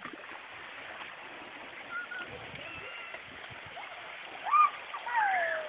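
Water rushing down a narrow concrete channel, a steady hiss, with voices calling out briefly in the last second or so.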